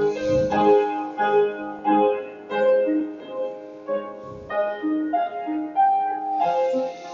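Solo piano playing a melody over chords, each note struck and then fading.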